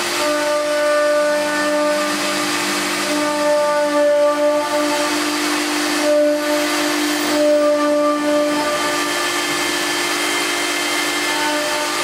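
Stone CNC router running with its spindle down on the workpiece: a steady machine hiss with several whining tones over it that switch on and off every second or two.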